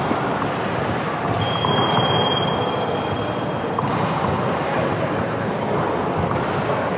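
Steady, reverberant din of a youth basketball game in a sports hall. A thin, high, steady tone is held for about two seconds, starting about a second and a half in.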